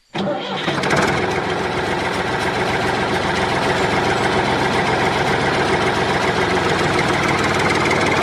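A small engine or motor running steadily at an even speed, with a fast, even rattling pulse. It starts abruptly.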